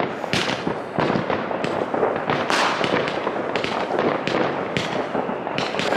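Fireworks going off: a dense, continuous crackling cut by sharp bangs, several a second.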